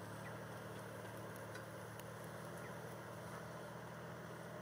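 Engine of a lifted 4x4 SUV running steadily at low revs as the truck crawls slowly over rough ground.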